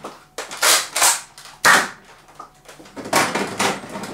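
Nerf Modulus Tri-Strike main blaster, a spring-powered dart blaster, being primed and fired repeatedly: a series of sharp plastic snaps and clacks.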